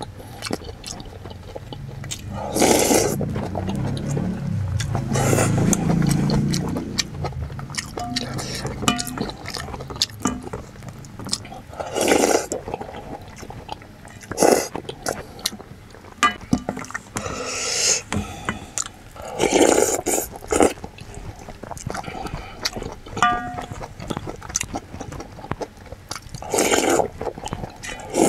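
A person eating soup, slurping spoonfuls loudly about seven times, with chewing and small clicks from a wooden spoon in a stainless steel bowl in between.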